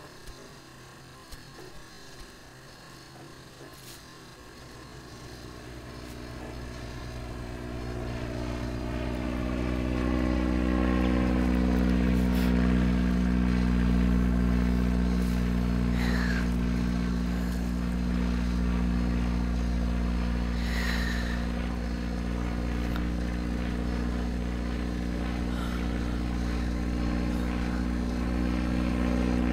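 Low, steady, engine-like drone with several held tones. It fades in from near quiet over the first several seconds, then holds steady, with a few faint short chirps around the middle.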